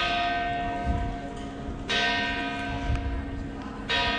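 A church bell strikes three times, about two seconds apart. Each stroke rings on and fades slowly until the next one.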